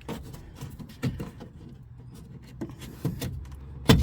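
Scattered light clicks and knocks of parts being worked out of a car's rear door as the door latch is removed, with one louder knock near the end, over a low steady hum.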